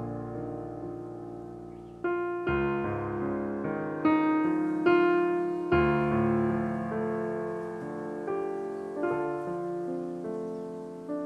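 Background piano music: slow chords and notes struck every second or so, each ringing on and fading.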